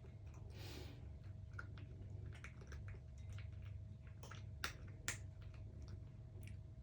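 Somali cats chewing their food: faint, irregular small clicks and crunches, with two sharper clicks about two thirds of the way through, over a steady low hum.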